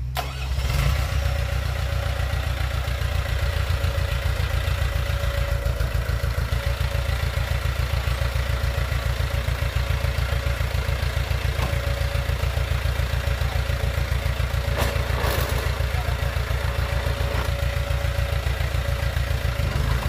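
Small crawler bulldozer's diesel engine running steadily, with a fast, even beat.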